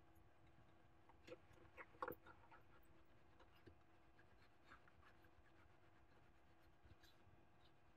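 Near silence with faint rubbing of a lint-free shop cloth wiping a graphics card's circuit board, a few soft scuffs between about one and two seconds in, over a faint steady hum.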